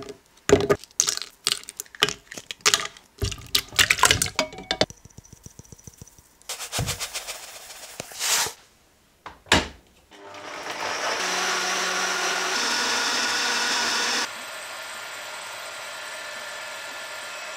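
A countertop blender runs for about four seconds, pureeing tomato with salt and dried herbs into pizza sauce. It then drops suddenly to a quieter steady hum. Before that come sharp clicks and knocks.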